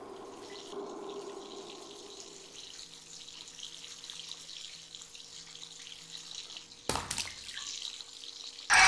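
Bathroom tap water running and splashing faintly while a man lathers his hair. About seven seconds in there is a sudden loud burst, and a much louder sound starts at the very end.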